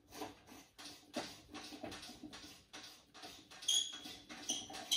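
Light clicks and scraping of hands working the back of a handheld spotlight to pull its globe (bulb) holder out, with a few short high squeaks near the end.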